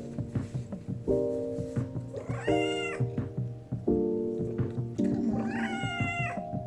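A domestic cat meowing twice, each a drawn-out call under about a second long, over background music.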